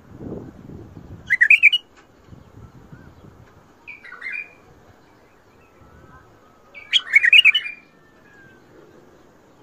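A white-eared bulbul (Iraqi bulbul) singing: three short phrases of song, the last the longest.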